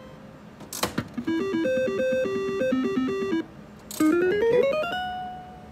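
Triple Diamond reel slot machine played by its handle: a sharp clack as the handle is pulled, then a beeping electronic tune while the reels spin, and a clunk as they stop. A quickly rising run of tones follows and settles on one held note, the machine's sound for a winning spin.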